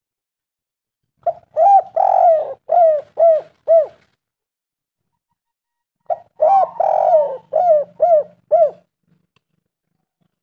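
Spotted dove (tekukur) cooing: two phrases a few seconds apart, each a short coo, a longer drawn-out coo, then three or four quick arched coos.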